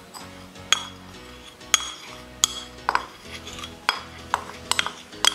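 A metal spoon clinking against bowls in sharp, irregular taps, about eight in all, as cornflour is scraped out of a small bowl into plain flour to make a coating mix. Background music plays underneath.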